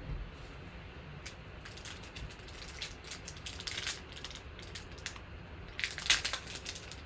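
Trading card pack wrapper crinkling and cards being handled as packs are opened: irregular runs of sharp crackles, with a louder cluster about six seconds in.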